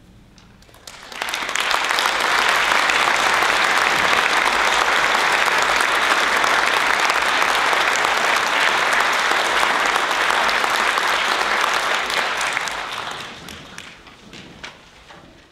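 Concert audience applauding: clapping breaks out about a second in, holds steady, then fades away near the end.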